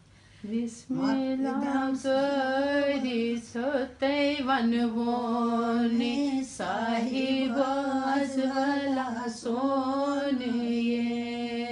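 An elderly woman singing a Kashmiri song solo and unaccompanied, in long held phrases with a wavering pitch. She breaks briefly for breath every few seconds.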